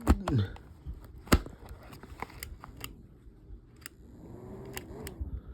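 Hard plastic clicks and knocks from handling a small battery fan's battery pack just loaded with D batteries, the loudest just after the start and about a second and a half in. A faint hum rises and falls near the end.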